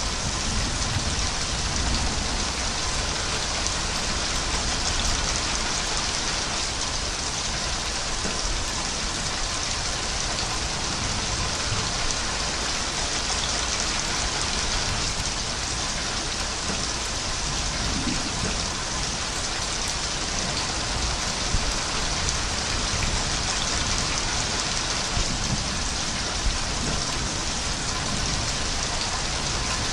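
Steady, even rain falling without a break.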